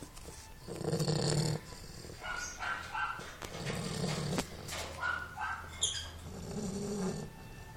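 Snoring: three slow, deep snores about three seconds apart, with higher squeaky sounds between them.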